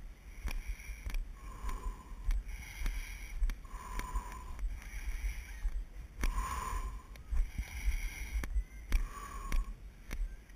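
A person breathing heavily while walking uphill on a rocky dirt trail, a long breathy exhale about every two and a half seconds, with regular footsteps on gravel and dirt under it.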